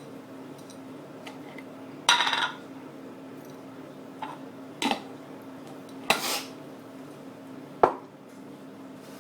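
Small gold-plated pins being dropped into a jar with metal-on-glass clinks and rattles, a brief rattle about two seconds in, further clinks and handling knocks, and a sharp click near the end.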